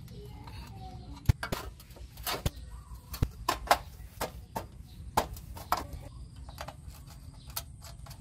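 Hands working on a motorcycle's rear wheel and swingarm: irregular light metal clicks and knocks as small parts, screws and the chain guard are handled, about a dozen in all.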